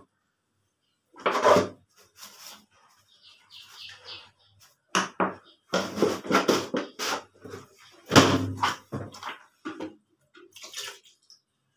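Irregular splashes and handling noises of washing by hand, with water and wet cloth moved about in a bucket in a small hard-walled washing area.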